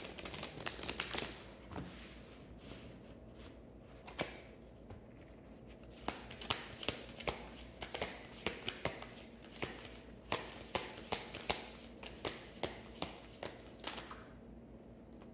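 A deck of tarot cards being shuffled by hand: a run of sharp card snaps and flutters, thick near the start, sparser for a few seconds, then thick again through most of the second half.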